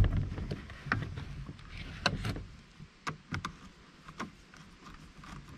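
Scattered light clicks and taps of a screwdriver turning a small screw through a metal face-guard clip into a batting helmet's plastic shell, with a low rumble in the first second or so.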